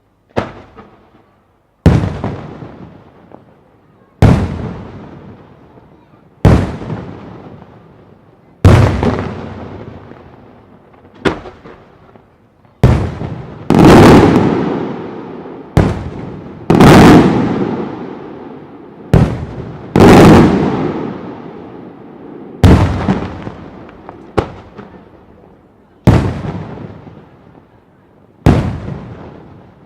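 Large aerial firework shells bursting one after another, a sharp boom about every two seconds, each trailing off in a long echoing rumble.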